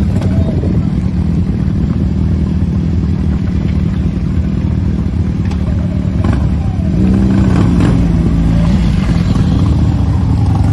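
A group of motorcycle engines running as the bikes ride past slowly, a dense steady rumble. About seven seconds in, a louder pitched note stands out for a second or two.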